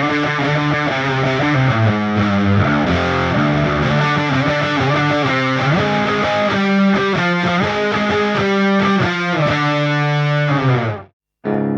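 Heavy fuzz-distorted electric guitar riff, tuned down to C#, played through an EarthQuaker Devices Hizumitas fuzz pedal. It cuts off abruptly about eleven seconds in, and a new guitar chord starts ringing just after.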